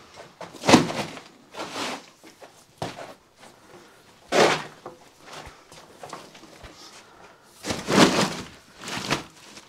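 Old rubber car tyres being rolled across a straw-strewn earth floor and set down, giving a string of dull thuds and scrapes, about six in all, with footsteps between.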